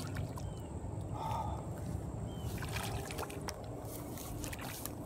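Shallow water sloshing and lapping at the edge of the bank over a steady low rumble, with a few light clicks and rustles about three and four and a half seconds in.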